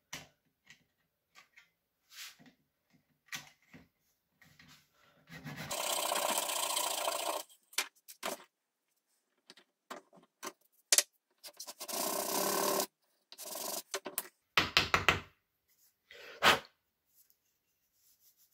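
Fine-toothed hand saw cutting a wooden dowel plug flush with a wooden vice jaw: stretches of rapid rasping scraping, the longest about two seconds, mixed with scattered knocks and clicks as the wooden jaw is handled in the metal vice.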